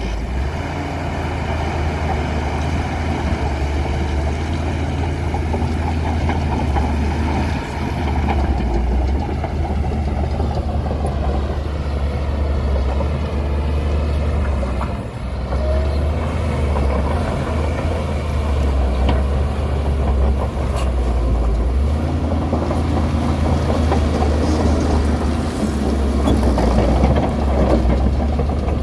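Bulldozer's heavy diesel engine running steadily under load, a deep continuous drone that swells and eases as it works and is loudest near the end.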